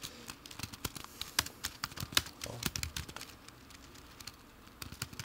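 Typing on a computer keyboard: quick, irregular key clicks that thin out for about a second around three and a half seconds in, then pick up again near the end.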